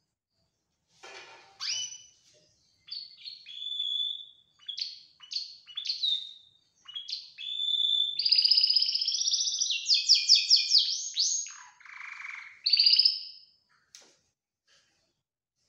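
Domestic canary singing a long song of whistled notes, quick sweeps and rapid trills, loudest in a fast rolling trill near the middle, ending about two seconds before the close.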